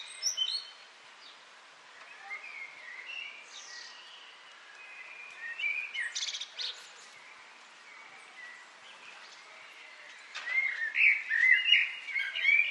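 Birds chirping and singing in short whistled phrases with quick pitch glides. The calls are sparse through the middle and come as a busier run of rapid chirps near the end.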